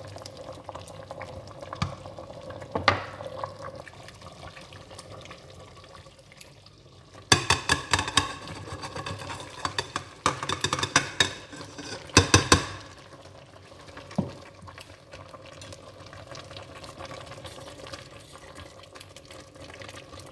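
A wooden spoon stirring a pot of simmering pepper-and-onion soup base. From about seven seconds in, there are five seconds of rapid loud clicking and rustling as ground egusi (melon seed) is tipped into the pot, then the soft stirring and simmering goes on.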